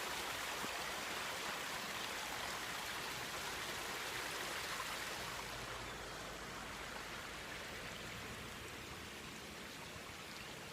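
Water trickling and splashing out of rocks in a small waterfall: a steady rush of running water, easing slightly about halfway through.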